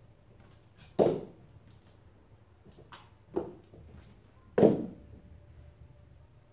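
A cat leaping at a wall and landing on a wooden floor: three thuds, about a second in, then at about three and a half and four and a half seconds, with a few light taps between.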